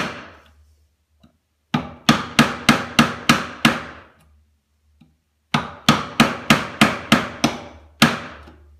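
Hammer tapping a chisel to chop down into a wooden box edge for a hinge socket. Two runs of quick, even taps, about three to four a second, each tap ringing briefly: about eight starting near two seconds in, a pause, then about ten more.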